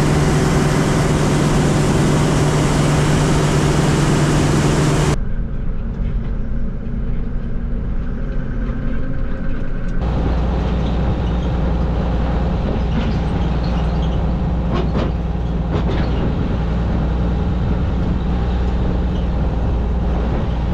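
Claas Dominator 96 combine harvester running, in clips cut together. First there is a steady hum as its unloading auger pours grain into a trailer. From about ten seconds in, the machine runs with a deep steady drone and a few clicks.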